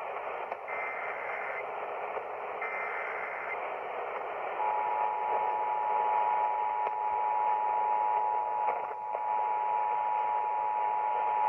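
The Emergency Alert System's digital header is received over radio hiss: two warbling data bursts about a second long and a second apart. About a second later the steady two-tone EAS attention signal (853 and 960 Hz together) starts and holds, announcing the test message that follows.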